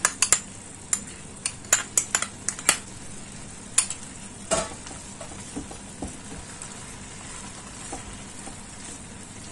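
Grated-carrot halwa sizzling in ghee in a pan while a wooden spatula stirs and scrapes through it. Sharp knocks of the spatula against the pan come every half second or so for the first few seconds, then the sizzle goes on more steadily.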